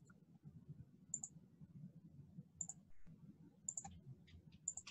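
Faint computer mouse clicks: four of them, about a second apart, each a quick double tick, over a low room hum.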